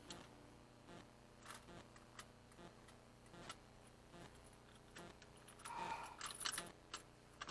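Faint scattered clicks and metallic clinks from small metal parts being handled, with a louder run of clinks about six seconds in.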